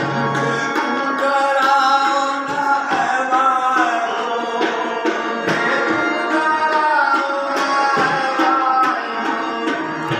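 Qawwali: a singing voice with harmonium accompaniment and tabla strokes keeping a steady beat.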